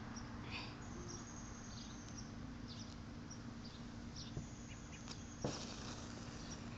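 Quiet outdoor background with small birds chirping on and off in short high notes over a faint steady low hum; a single faint click about five and a half seconds in.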